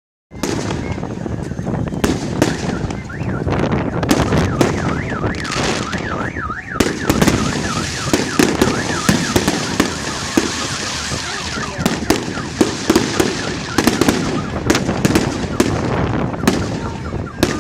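Fireworks display going off: repeated bangs and crackling bursts. From about two and a half seconds in to about seven seconds a car alarm warbles up and down among the bangs.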